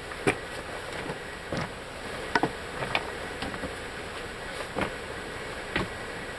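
Footsteps and scuffs on the rocky, stony floor of a cave, a few irregular knocks and clicks spaced a second or so apart over a steady hiss.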